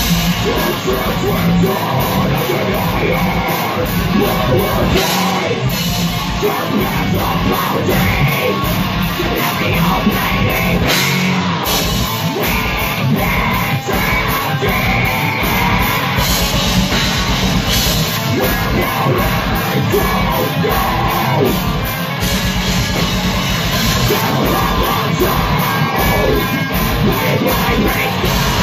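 Heavy metal band playing live: distorted electric guitars and a fast, steady drum kit, with a vocalist singing into a microphone. It is loud and unbroken throughout.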